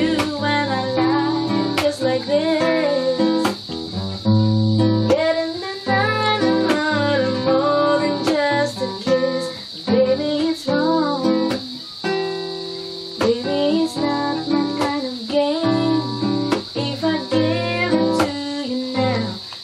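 A woman singing a slow, mellow song in phrases, accompanying herself on a nylon-string classical guitar, plucked and strummed.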